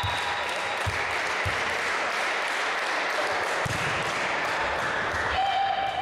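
Clapping echoing around a large sports hall, with a few dull low thumps through it.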